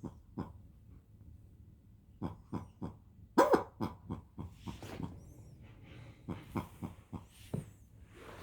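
A dog giving a run of short, uneasy barks and huffs, the loudest a sharper bark about three and a half seconds in. The dog is reacting to a toy's camel-cry sound that it dislikes.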